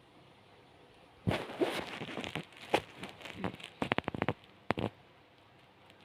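A snoring man's exhale between two snores: an irregular run of crackling, clicking sputters from the lips and throat from about a second in until near the end, with quiet before and after.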